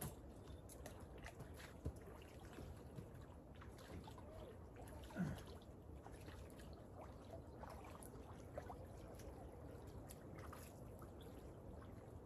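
Small waves lapping against the lakeshore: a faint, steady low wash with scattered small clicks, and one brief louder low sound about five seconds in.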